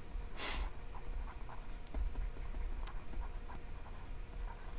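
Light scratching and ticking of a stylus writing by hand on a pen tablet, with one breath about half a second in.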